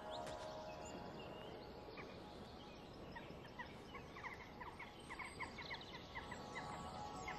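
A bird calling in a fast run of short repeated notes, starting about two seconds in and going on until near the end.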